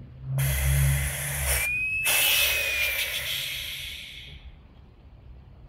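Compressed air hissing from a firefighter's breathing apparatus in two loud bursts, with a brief whistle during the second; the hiss fades away about four seconds in.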